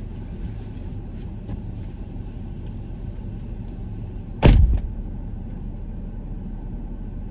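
Steady low rumble of a car, with a single loud thump about four and a half seconds in.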